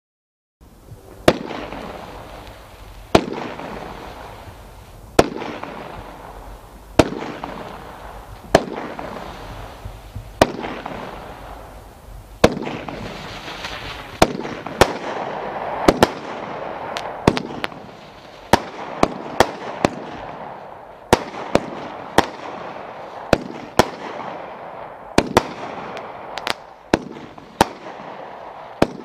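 Brothers 'Saturday Night Special' 36-shot fireworks cake firing flaming balls with reports. It begins about half a second in with sharp bangs about every two seconds, then from about 14 seconds the shots come much faster, several a second at times, with a steady hiss between the bangs.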